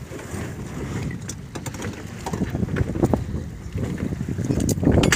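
Fishing boat at sea: a steady low rumble with wind on the microphone, and a few sharp knocks scattered through it.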